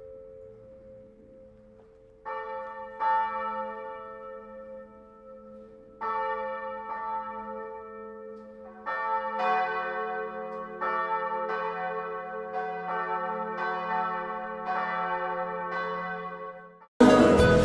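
Large bronze church bells swinging and ringing in a bell tower, each strike followed by a long ringing hum. The strikes come a few at a time at first, then more often from about nine seconds in, with several bells sounding together. Near the end the bells cut off suddenly and loud music begins.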